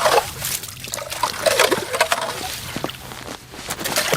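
Lake water sloshing and gurgling in a freshly cut hole through the ice, with irregular splashes, the loudest right at the start.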